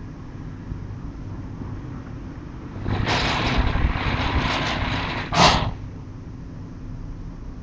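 A sliding door in a neighbouring house runs along its track with a rattling, rolling noise for about two seconds, then bangs shut once. A steady low hum underlies it.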